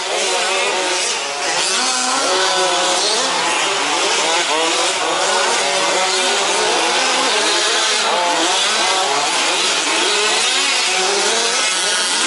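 Several 1/5-scale petrol RC trucks' small two-stroke engines racing together, their pitches rising and falling continuously as they rev up and ease off around the track.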